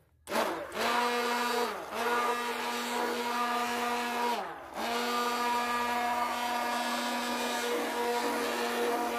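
Handheld immersion blender running in a bowl of lotion, its motor whining at a steady pitch as it mixes the batch. The motor slows and picks back up twice, about two seconds and four and a half seconds in.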